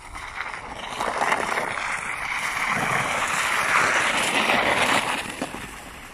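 A child sliding down an icy snow slide: a long scraping hiss that builds over about a second, holds, and fades out near the end.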